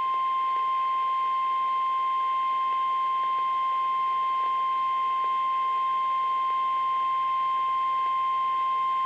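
Weather Radio Canada 1050 Hz warning alarm tone: one continuous steady beep that starts abruptly and holds a single pitch throughout. It is the weekly test of the weather radio tone alarm feature.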